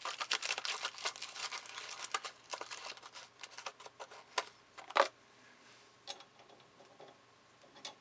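Small clear plastic bag crinkling with rapid small clicks as a piercing line-tap tool is put away, then a few scattered clicks and one sharper knock about five seconds in.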